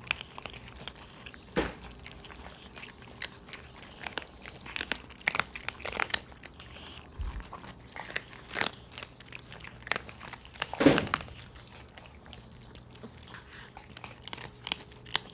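A group of cats crunching dry kibble from shared bowls: many small, irregular crunches and clicks, with one louder knock about two-thirds of the way through.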